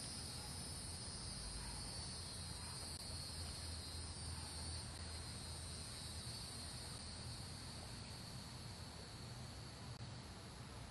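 Evening insects chirring steadily in a continuous high-pitched drone, over a faint low rumble.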